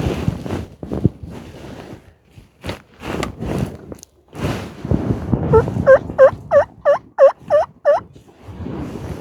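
Wild turkey calling close by: a run of about eight loud, evenly spaced notes, roughly three a second, past the middle, after some rustling and light knocks of movement in the blind.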